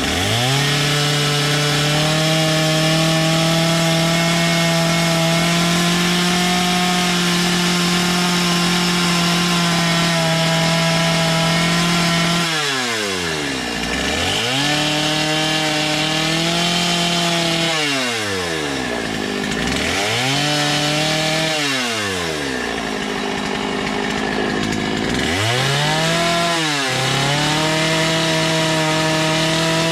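Two-stroke chainsaw carving wood, held at high revs through long cuts. It drops off the throttle to idle four times in the second half, revving back up each time.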